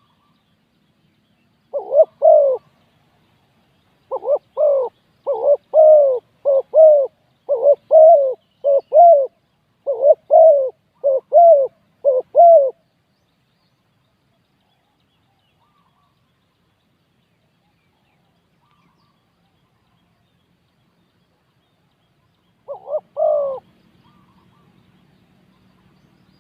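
Spotted dove cooing: a string of short, repeated low coo phrases for about ten seconds, then a long pause and one more phrase near the end.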